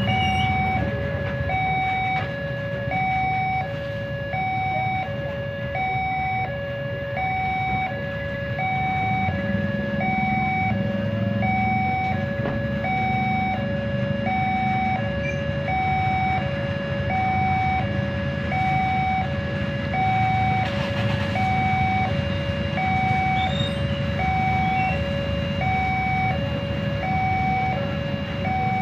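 Railway level-crossing warning alarm sounding, a steady electronic two-tone that alternates high and low about once a second. Underneath it are the low running engines of the motorcycles and cars waiting at the lowered barrier.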